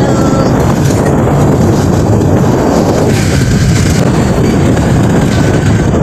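Motorcycle engine running while riding, with wind rushing over the microphone: a loud, steady rumble.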